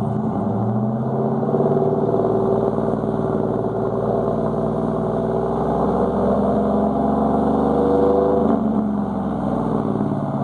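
2015 Chevy Silverado's 5.3L EcoTec3 V8, warm, through Kooks long-tube headers and a Jones JT3030 turbine muffler: the engine is revved up over about a second, held at raised revs for several seconds, then drops back toward idle near the end.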